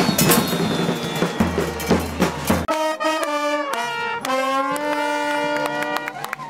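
Murga band music: drums and crashing cymbals for the first couple of seconds, then brass instruments take up a melody in held notes.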